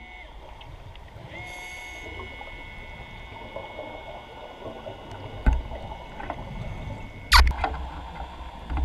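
Underwater scooter (diver propulsion vehicle) heard underwater as a faint steady whine, with the bubbling of a diver's exhaled air. A sharp knock comes about five and a half seconds in, and a brief loud rush near the end.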